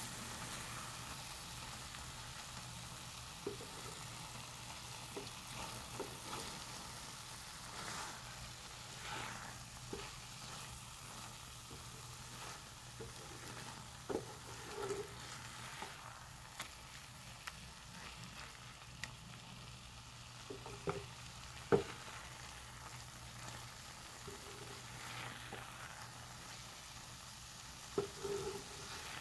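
Tomatoes and eggs frying with a faint sizzle in a nonstick frying pan while a spatula stirs and scrapes through them, with scattered light knocks of the spatula against the pan. The sharpest knock comes about three-quarters of the way through, and a few more come near the end.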